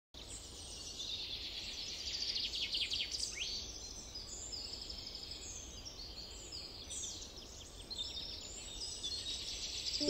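Several songbirds singing and calling at once in a dawn chorus: overlapping chirps, fast trills and quick downward-sliding whistles, over a faint low background rumble.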